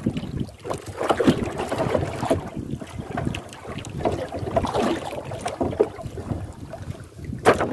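Wind buffeting the microphone and water slapping against a small outrigger boat, in uneven gusts and splashes, with one sharp knock near the end.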